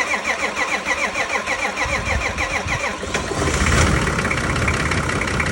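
Nissan TD42 4.2-litre inline-six diesel cranking on the starter with a rapid, even rhythm for about two seconds, then firing and catching. It swells briefly louder and settles into a steady run: its first start after a full engine rebuild.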